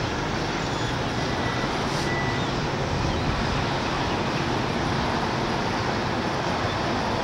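Steady, even outdoor rushing noise heard from high above the beach and city, with no distinct events in it.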